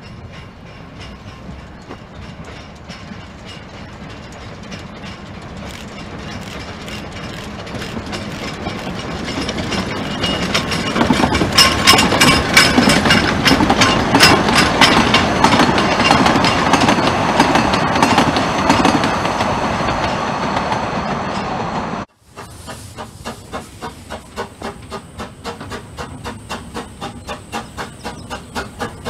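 Narrow-gauge steam train approaching and passing, its carriages clattering over the rail joints, loudest about halfway through. Then it breaks off abruptly to a steam locomotive hissing steam and exhausting in an even beat of about two chuffs a second.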